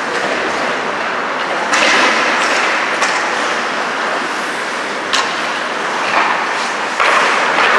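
Ice hockey play heard in the rink: a steady wash of skates scraping the ice and arena noise, with sharp clacks of sticks and puck about two, three and five seconds in. The sound gets louder near the end.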